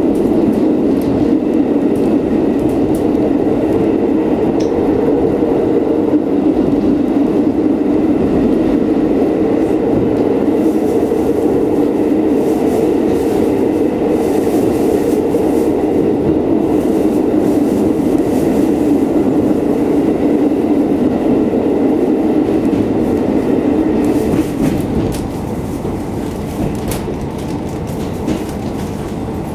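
KiHa 40 diesel railcar running along the line, heard from inside the carriage: a steady drone of the engine and rumble of wheels on the rails. The sound drops noticeably near the end.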